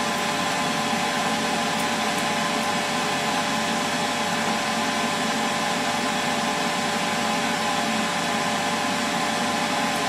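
Electric desoldering tool's vacuum pump running steadily, a continuous even hum with a faint steady whine in it; loud enough to be called a racket.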